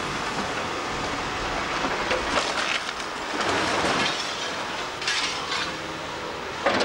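Hydraulic excavator demolishing a building's upper walls with its bucket: a steady machinery din with bursts of falling masonry and rubble clattering, about two seconds in, around five seconds in and again near the end.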